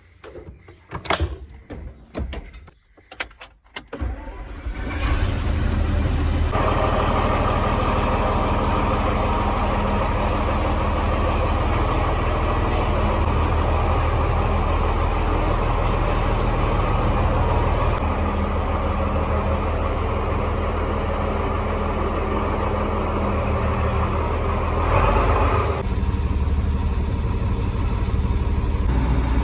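A few knocks, then a tractor engine starts about four seconds in and runs steadily, its sound growing fuller a couple of seconds later.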